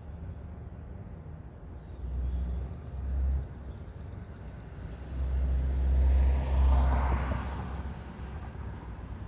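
Outdoor road ambience with a vehicle passing: a low rumble and tyre noise that swell and fade between about five and eight seconds in. A shorter swell comes a couple of seconds in. Over it, a high, rapid trill of about eight even notes a second runs for roughly two seconds.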